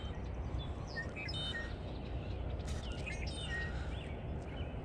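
Steady outdoor background hiss with faint birds chirping now and then.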